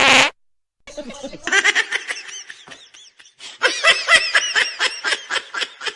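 A loud pitched sound cuts off abruptly just at the start. After a brief silence comes a run of short, high-pitched laughs, each rising and falling in pitch, at about four or five a second and louder from about halfway through.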